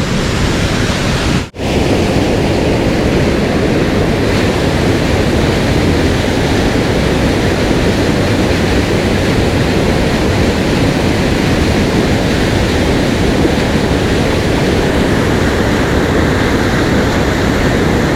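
Steady rush of a mountain stream's fast water, loud and unbroken, with a brief dropout about a second and a half in.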